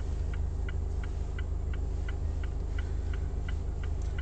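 A car's indicator ticking evenly, about three clicks a second, over the car's steady low rumble.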